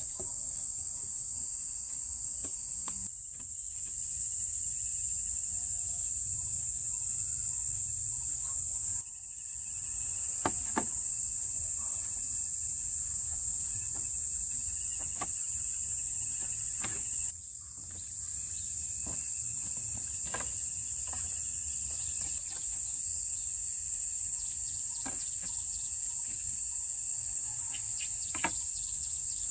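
Forest insect chorus: a steady high-pitched buzz that dips briefly three times, with scattered sharp knocks or taps through the second half.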